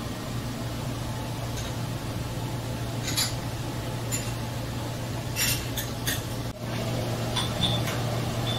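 A few light, short clinks of kitchen utensils over a steady low hum, clustered about three seconds in, around five and a half to six seconds, and near the end.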